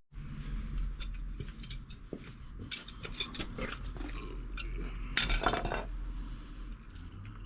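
Metal tools and parts clinking and clattering as they are handled, with a louder burst of clattering about five seconds in.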